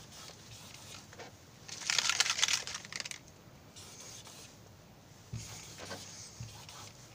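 Felt-tip marker scraping and squeaking over a writing board, a quick run of strokes about two seconds in, then fainter single strokes.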